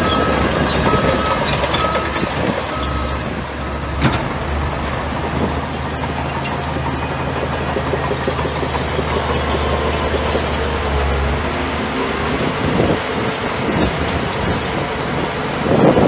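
Bulldozer diesel engine running steadily, with a reversing alarm beeping until about three seconds in. A sharp knock comes about four seconds in, and another louder clatter near the end.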